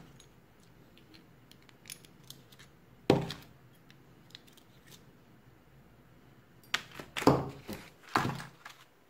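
Small metal parts clinking and knocking as worn brake pads and their retaining pin are handled and pulled from a Shimano Tourney TX mechanical disc brake caliper. There is one sharp knock about three seconds in, faint ticks after it, and a cluster of clinks and knocks near the end.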